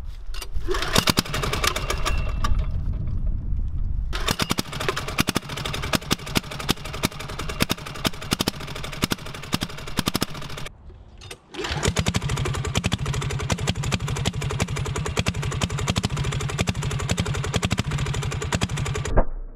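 Small single-cylinder diesel engine on a kids' quad starting up within the first second and then running with a rapid, hard knocking clatter. It gets louder about four seconds in, drops out briefly near eleven seconds, then runs on steadily.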